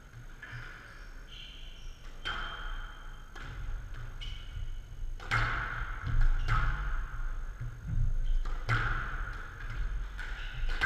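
Squash rally: the ball struck by rackets and hitting the walls, about every second and a half, each hit with a short echoing ring, and sneakers squeaking briefly on the court floor.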